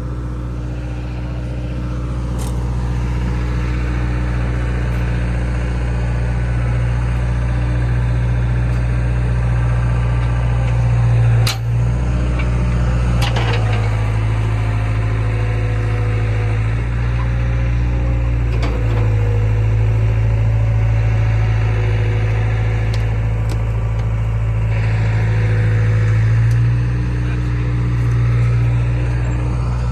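A vehicle engine running steadily, with its speed stepping up and down a few times. There is a sharp knock about halfway through.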